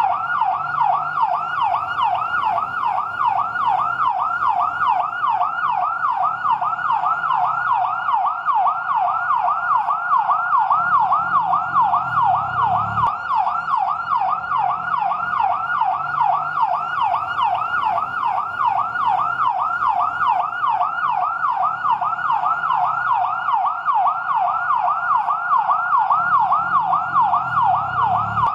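Fire truck siren on its yelp setting: a rapid electronic wail sweeping up and down about three times a second, steady and unbroken.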